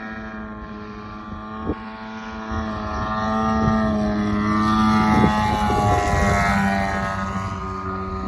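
Hangar 9 Carbon Cub FX-3 radio-controlled model airplane making a low pass. Its engine and propeller drone grows louder to a peak about five seconds in, the pitch rising on the approach and dropping as it goes by.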